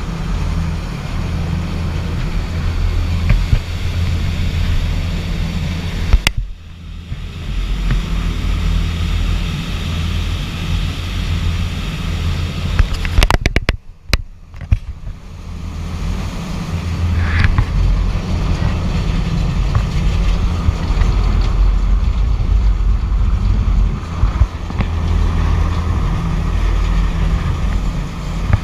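Steady low rumble of wind on the microphone mixed with the engine drone and rushing wake of a fast passenger ferry under way. The rumble drops away briefly about six seconds in and again around fourteen seconds.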